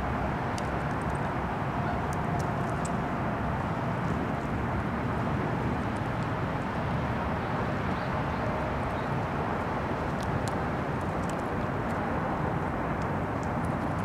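Steady low rumble of outdoor background noise, with a few faint short high ticks scattered through it.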